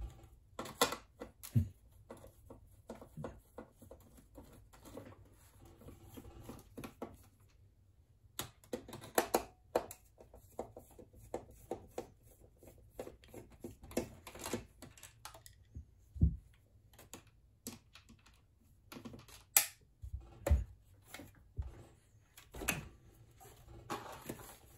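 Irregular light clicks and taps of a screwdriver working a screw out of a sewing machine's plastic housing, with its parts being handled.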